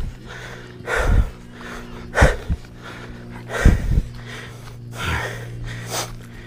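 A vehicle engine running steadily at idle, with about five short, noisy breaths close to the microphone spaced a second or so apart.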